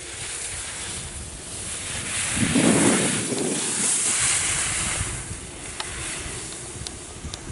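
Skis carving on firm snow: a rushing scrape that swells to its loudest about three seconds in and then eases, mixed with wind on the microphone. A few short clicks come near the end.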